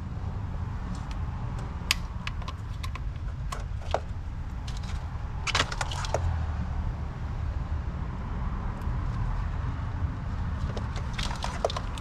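Light clicks and clacks of hose fittings and an electrical connector being pried loose with a screwdriver around a throttle body, scattered through, with a quick cluster about five and a half seconds in and more near the end. A steady low rumble lies underneath.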